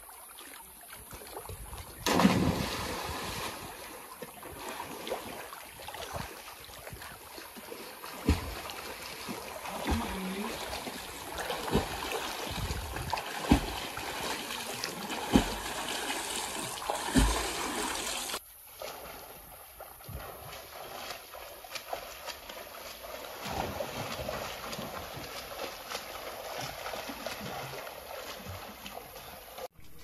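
A person jumping from a rock ledge into a lake lands with a loud splash about two seconds in, followed by intermittent splashes from front-crawl swimming strokes. After a sudden change at around 18 seconds, a steadier, quieter noisy background continues.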